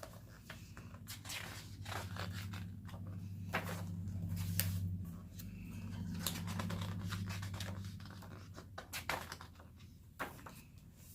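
Paper rustling and crinkling, with many short sharp rustles and ticks, as glossy photobook pages and packaging are handled and turned. A steady low hum sits under it in the middle stretch.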